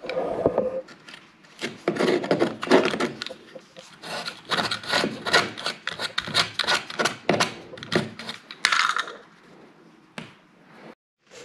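Razor blade scraping off caulking in quick back-and-forth strokes, about four a second, in several runs with short pauses.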